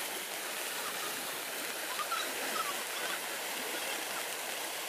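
Swollen, muddy floodwater rushing through a concrete culvert, a steady, even rushing noise.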